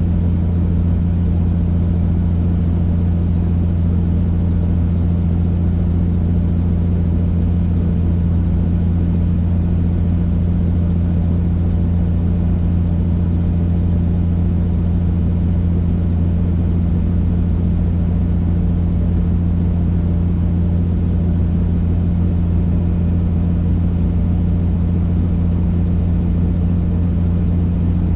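Helicopter running: a steady, deep drone of rotor and engine.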